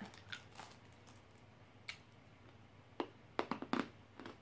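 A few faint, sharp clicks in a quiet room: one a little under two seconds in, then a quick cluster of about five near the end.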